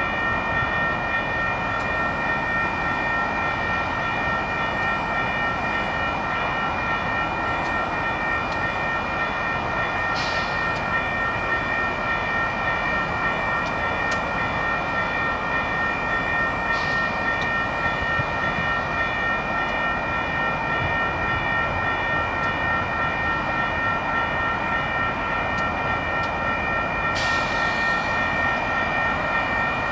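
Union Pacific diesel-electric freight locomotives idling while stopped, a steady engine hum with a steady high-pitched whine over it, broken by a few short hisses.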